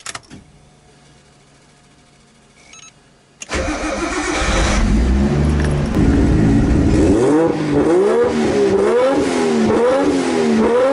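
A car engine bursts into life about a third of the way in and is then revved up and down repeatedly, its pitch rising and falling several times. Before it there is only a faint low hum.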